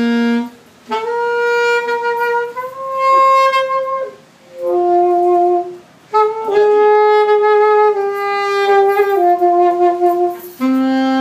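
Saxophone playing a slow melody of long held notes, with brief pauses between phrases.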